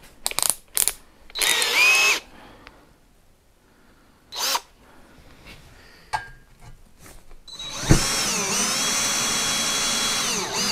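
Cordless drill-driver running in several short bursts, then one long run of about four seconds near the end as it drives a screw into 3 mm metal plate. Its motor pitch dips and levels off under the load.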